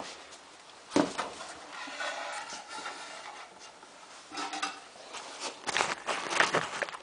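Handling noises: a sharp knock about a second in, then scraping and rustling with a few light knocks and clatters.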